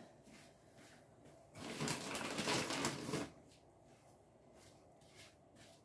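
Rustling and clattering of things being handled out of sight, for about a second and a half in the middle, then faint room tone with a few light ticks.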